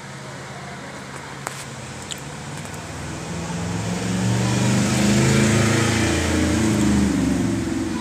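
A motor vehicle's engine running close by, with a low hum that grows louder over a few seconds, holds, then eases off near the end, like traffic passing. Two short clicks come in the first couple of seconds.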